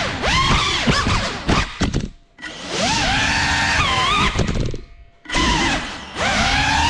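GEPRC Cinelog 35 cinewhoop's brushless motors and ducted propellers whining, the pitch rising and falling with the throttle. The sound twice drops almost to silence for a moment as the throttle is cut, around two seconds and five seconds in, with a few sharp clicks just before the first drop.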